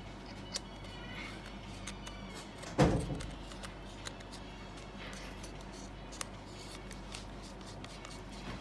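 Handling noise from a box mod and its rebuildable tank being screwed together and turned over in the hands: scattered small clicks, and one sudden loud knock about three seconds in.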